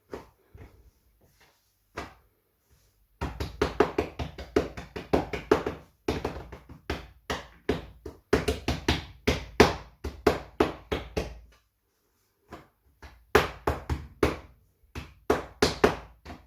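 Hands patting bread dough flat on a floured worktop: runs of quick soft slaps, several a second, broken by short pauses.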